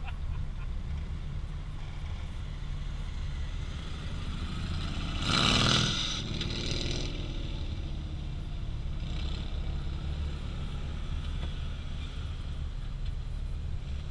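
Off-road vehicle engine idling with a steady low rumble, and a brief louder rush of noise about five seconds in.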